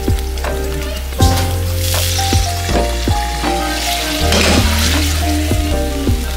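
Eggs frying in oil in a non-stick frying pan, a steady sizzle, under background music with a steady bass line.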